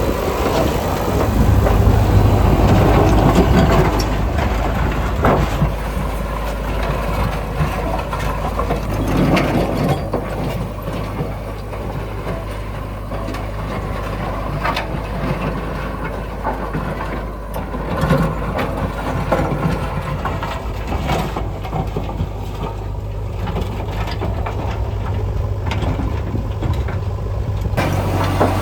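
Diesel engine of heavy construction machinery running steadily, with occasional knocks.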